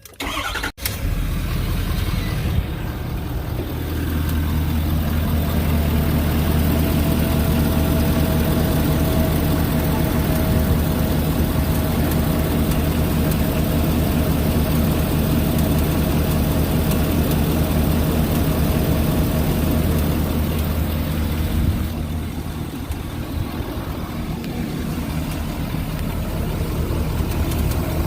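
Ford 6.7 Powerstroke V8 turbodiesel starting about a second in, then idling with a rapid clattering tick: the 'typewriter noise', which the owner finds horrible but has been told is normal. The engine gets somewhat quieter near the end.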